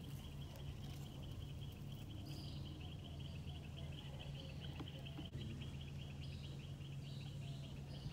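Outdoor ambience: insects trilling steadily in a fast, even pulse, with a few faint bird chirps and a low background rumble.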